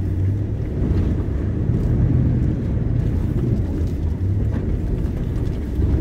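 Nissan Y62 Patrol's 5.6-litre V8 and its tyres on a rough dirt track, a steady low drone and rumble heard from inside the cabin, with a few light knocks.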